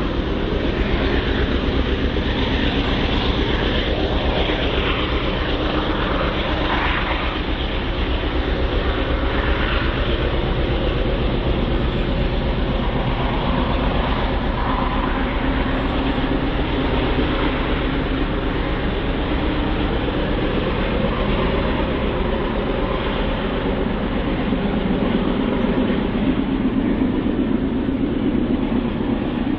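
Freight train cars rolling past close by: a steady, loud noise of steel wheels on the rails, with fast fine clicking throughout.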